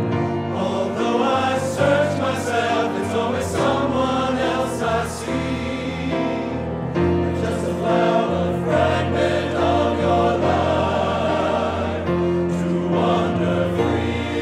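Men's chorus singing a song in several-part harmony, with sustained chords and crisp sung consonants.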